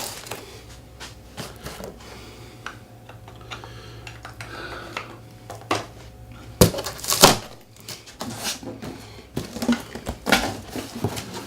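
A large cardboard box being opened and handled: scattered knocks, scrapes and rustles, with the loudest cluster of knocks about seven seconds in.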